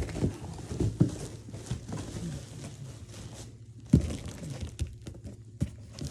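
Gift packaging being handled and opened: crinkling and tearing with scattered knocks and thumps, the loudest about four seconds in.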